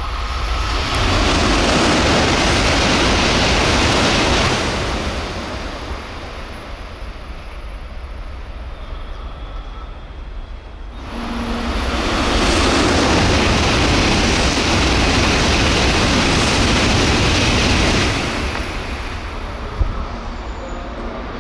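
Shinkansen high-speed train passing through a station at up to 300 km/h without stopping: a loud rushing roar, heard twice, each lasting several seconds, with a steady low wind rumble between the passes.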